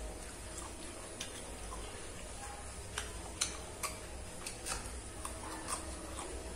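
Close-miked eating sounds: wet chewing clicks and lip smacks from a mouthful of rice and pork curry eaten by hand, in irregular sharp clicks, with a cluster of louder ones in the second half.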